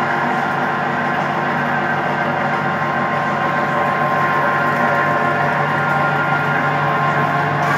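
Countertop stainless-steel electric meat grinder running steadily with a motor hum while it mincing meat, pushing strands out through its plate.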